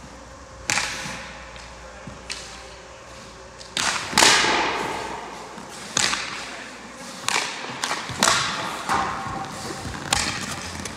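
Ice hockey pucks being shot at a goalie: a string of sharp cracks from sticks striking pucks and pucks hitting pads and boards, each ringing out in a long echo through the rink.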